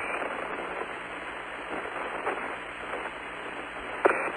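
Steady hiss of an open radio voice link between transmissions: the Apollo lunar surface communications loop, with a short crackle about four seconds in.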